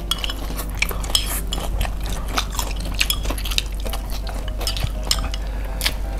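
Close-miked eating: chopsticks clicking and scraping against plates in many small, irregular clicks, with noodles being slurped and chewed.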